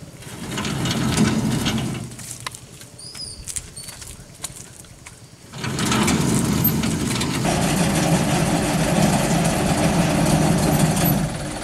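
Dump truck engine running at idle. It is quieter for a few seconds early on, then steady and louder from about halfway through, with a brighter edge added a little later. Two short high chirps sound in the quieter stretch.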